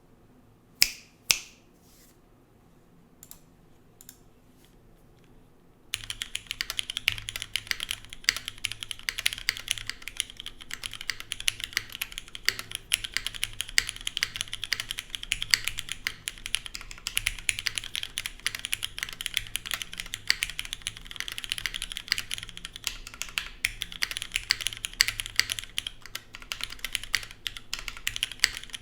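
A few separate sharp clicks in the first seconds, then steady fast typing from about six seconds in, on a TGR Jane ME mechanical keyboard with lubed and filmed Cherry MX Black linear switches in an aluminium plate, O-ring gummy mount, no foam, and GMK keycaps.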